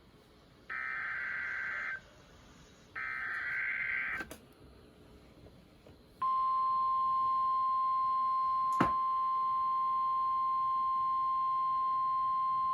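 Emergency Alert System signal from NOAA Weather Radio for a severe thunderstorm warning. Two buzzy SAME header data bursts, then after a short pause the single-tone 1050 Hz warning alarm comes on, steady and loud, with a click partway through.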